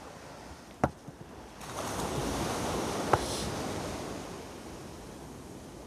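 Sea surf washing up the beach, a wave's wash swelling and easing over a few seconds. A couple of sharp knocks come about a second in and about three seconds in.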